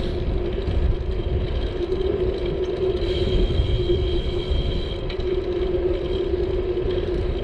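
Wind and road rumble on a bicycle-mounted GoPro Hero 7 muffled by a foam wind cover while riding, with a steady low hum throughout.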